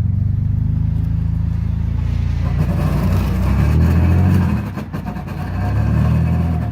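A motor vehicle's engine running, a loud low hum that swells and dips about two-thirds of the way through.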